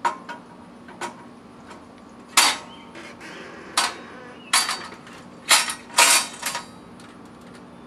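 A string of sharp metal clanks and clicks, about ten, irregularly spaced and loudest between about two and a half and six and a half seconds in, from a Cub Cadet CHL 500 mower lift's steel frame and handle as the handle is worked and the lift is let down.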